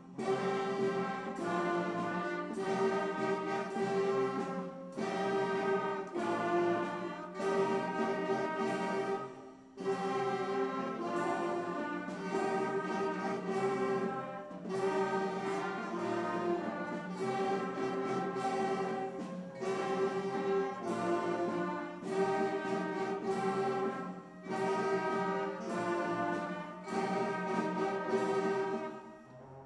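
Beginning middle-school concert band of woodwinds and brass playing slow sustained chords in short phrases. The last chord cuts off near the end.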